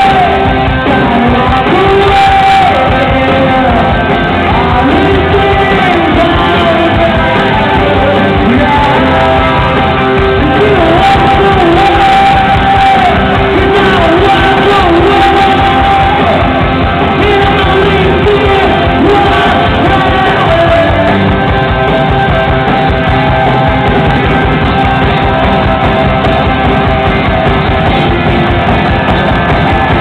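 A rock band playing live: electric guitars, bass and drums with a singer's vocals, loud and continuous.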